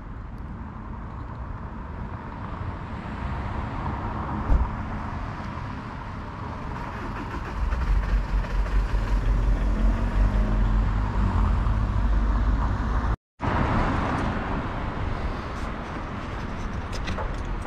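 Outdoor street ambience of road traffic and wind, with heavy wind buffeting on the microphone from a little before halfway. The sound cuts out for a moment about three-quarters of the way in, then resumes with a few light clicks.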